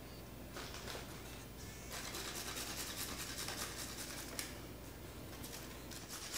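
Baby carrot grated on a handheld metal cheese grater: rapid rasping strokes with short pauses.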